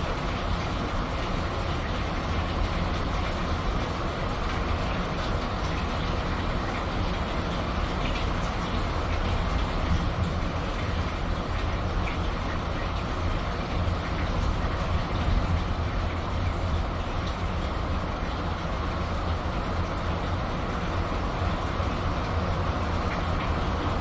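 Steady rain falling, an even hiss with faint scattered ticks over a constant low rumble.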